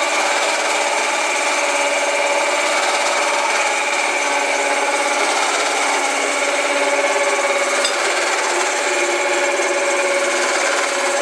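Electric Power Plus stand mixer running steadily with its twin beaters turning through cake batter in a stainless steel bowl. Its motor gives a steady hum with a high pitched tone over the churning of the beaters.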